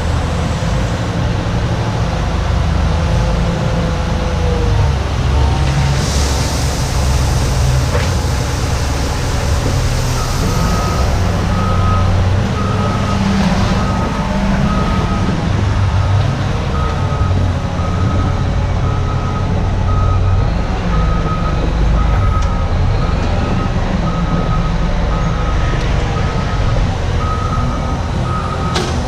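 Heavy diesel construction machinery running, with a brief hiss about six seconds in. From about ten seconds in, a backup alarm beeps about once a second as a machine reverses.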